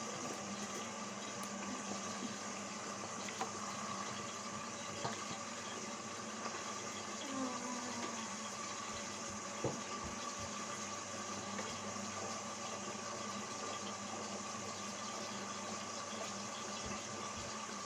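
Indesit washing machine running a wash cycle: a steady rush of water with a constant low hum and a faint higher tone, and a few light clicks.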